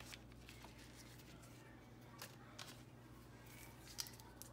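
Near silence: faint room hum with a few soft crinkles and ticks from a butter stick's paper wrapper being handled, the sharpest about four seconds in.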